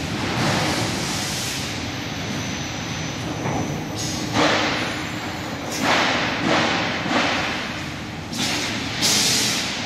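Steel factory hall noise: a steady machinery rumble broken by a series of echoing thuds and clanks, about seven of them, the loudest near the end.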